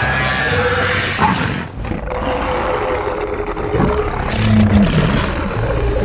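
Mothra-style monster sound effects: loud, continuous creature roars and shrieks, several layered over one another, with drawn-out pitched calls that bend in pitch.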